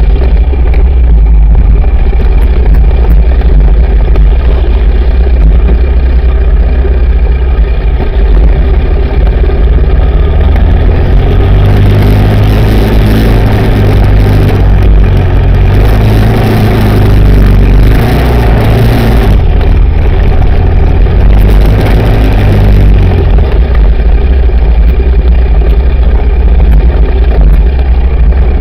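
Yamaha Raptor 700R quad's single-cylinder four-stroke engine running hard under throttle on a dirt trail, very loud and close. Its pitch rises and falls as the rider works the throttle, most busily in the middle stretch, with heavy rumble and wind noise on the camera's microphone.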